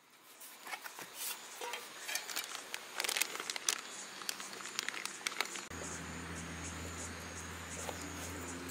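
Crinkling and sharp clicking of packaging handled by hand beside an aluminium mess tin, with insects chirping in a steady high tone. A little past halfway the crinkling thins out and a steady low hum starts suddenly.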